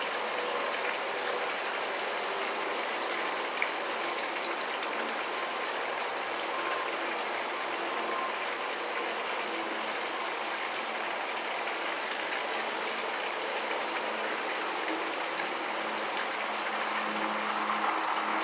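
Steady, even hiss of background noise.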